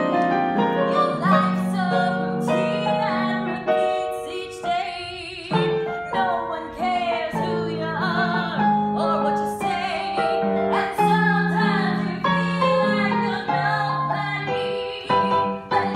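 Show-tune music: a piano accompaniment playing, with a woman's singing voice over it at moments.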